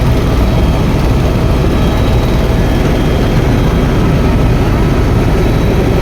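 Helicopter engine and rotor running steadily: a loud, constant drone, heaviest at the low end.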